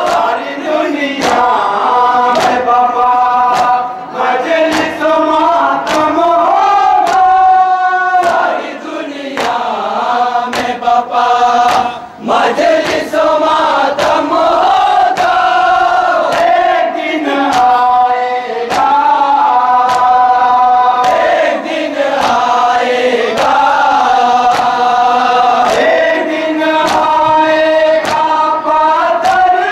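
A group chanting a Shia noha in unison, the sung line rising and falling, over a steady sharp beat about every three-quarters of a second: the rhythm of matam, mourners striking their chests in time.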